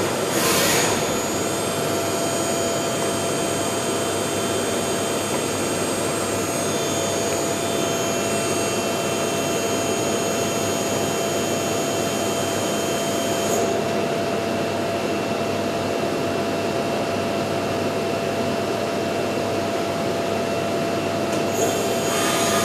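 VMC 600e CNC vertical machining centre running a program without a workpiece: spindle and axis drives whirring steadily with several high whining tones. A short hiss comes about half a second in. The highest whine drops out about 14 s in and returns near the end.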